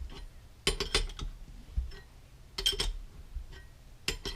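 Two steel open-end wrenches clinking on the nuts of a homemade bolt headset press as it is tightened stroke by stroke, pressing a headset cup into the bicycle head tube. Three short clusters of metallic clinks, one about every one and a half to two seconds.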